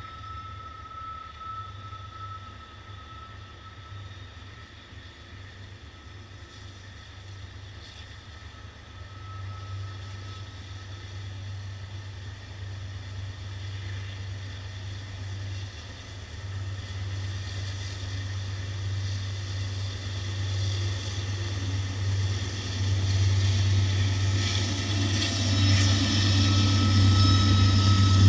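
Slow-moving freight train of autorack cars rolling past, with the low drone of a diesel locomotive, the train's mid-train distributed power unit, growing steadily louder as it approaches.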